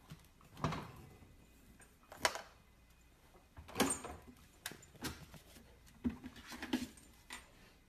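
A husky puppy climbing into an open refrigerator onto its bottom shelf: a string of short knocks, clicks and rustles from paws and claws on the plastic and glass shelving and the fridge door.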